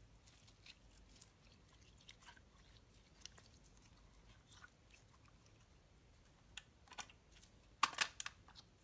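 Slime being stretched and squeezed by hand, giving faint wet, sticky clicks and small pops, with a louder cluster of crackling pops near the end as the slime is pressed down.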